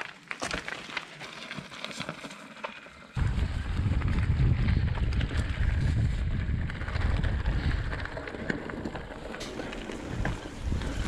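Mountain bike riding over a gravel-and-dirt trail, tyres crunching with scattered clicks and rattles from the bike. About three seconds in, a loud low wind rumble on the microphone sets in suddenly and stays under the tyre noise.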